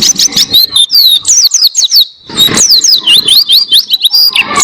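A pleci (white-eye) singing a long, fast run of high, sweeping chirps, with a brief break about two seconds in.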